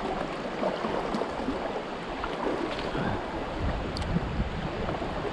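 River current rushing over a rocky shallow. A low rumble of wind on the microphone joins in about halfway through.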